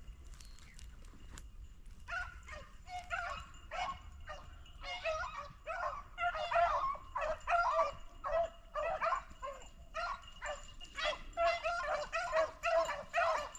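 Several beagles baying as they run a rabbit's trail: repeated barking notes that start about two seconds in and come faster and louder toward the end as the pack draws near.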